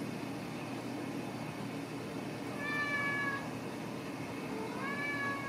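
Ragdoll kitten meowing twice: a high call of under a second about halfway through, then a second call near the end that rises in pitch at its start.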